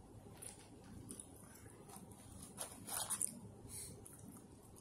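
Faint eating and drinking sounds close to the microphone: sipping a Coke through a straw and chewing French fries, with a brief louder burst of sound about three seconds in.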